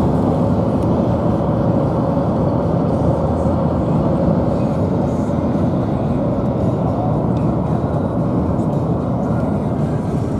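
Steady low rumble of a moving vehicle's engine and tyres, with a faint steady hum and no breaks.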